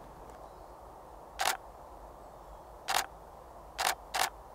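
Camera shutter firing four single frames, each a short sharp click. The last two come in quick succession.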